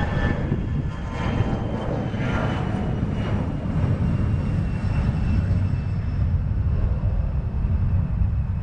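Jet engines of a departing ExpressJet regional jet, a steady low rumble under a high engine whine that fades over the first few seconds as the aircraft climbs away.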